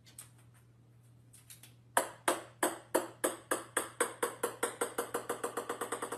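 Small ball bouncing on a hardwood floor. From about two seconds in, sharp ringing taps come faster and fainter as the bounces die down.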